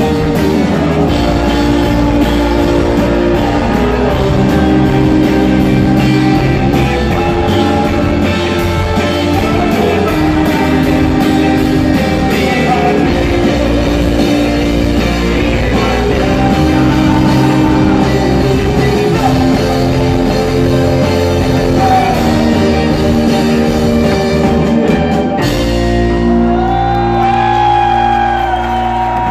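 Rock band playing live: electric guitars, bass guitar and a drum kit under a male lead singer. About 25 seconds in the drums and cymbals stop, and held chords and the sung voice ring on as the song winds down.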